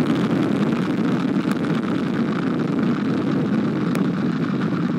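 Space Launch System rocket lifting off, its four RS-25 core-stage engines and two solid rocket boosters firing together: a steady, deep rocket exhaust noise.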